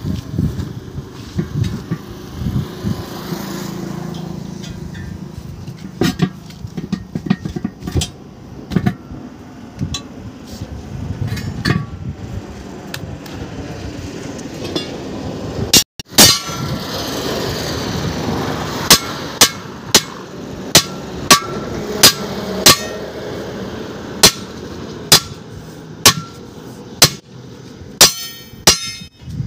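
Hand hammer beating on a 1000-20 truck tyre at its steel wheel rim while the tyre is fitted: a run of sharp, evenly spaced strikes about half a second apart through the later part, with scattered duller knocks earlier.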